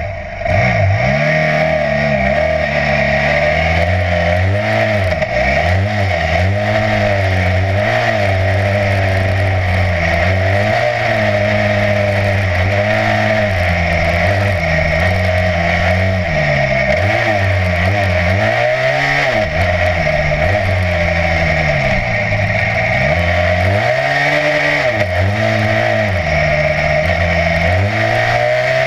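BMW F800GS Adventure's parallel-twin engine under way, its revs rising and falling over and over as the rider works the throttle and gears.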